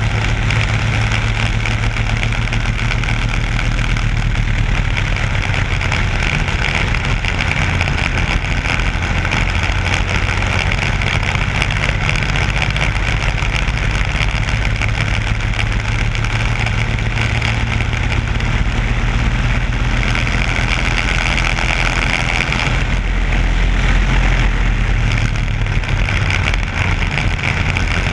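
Racing kart's Briggs & Stratton Animal four-stroke single-cylinder engine running hard at speed, recorded onboard. The low rumble swells louder for a few seconds near the end.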